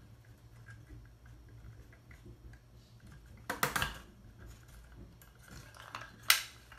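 Laser-cut plywood parts of a wooden mechanical model clicking and knocking together as they are handled and pressed into place: scattered light clicks, a short cluster of clacks about halfway through, and one sharp click near the end.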